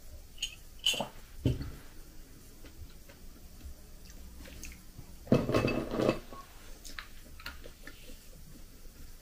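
Sips from a mug, then the mug set down on the table with a low knock about a second and a half in, and light clinks of crockery. About five seconds in comes one louder sound lasting about a second.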